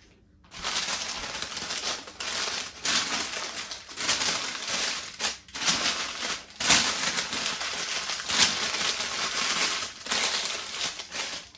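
Crinkling and crumpling of a sheet of kitchen wrapping as it is handled in fits and starts, with short pauses between.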